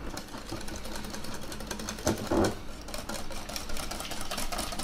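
A spoon stirring a thick batter of rice flour, liquid egg white and whey in a glass bowl, clinking and scraping against the glass in a rapid run of clicks. A short vocal sound comes about two seconds in.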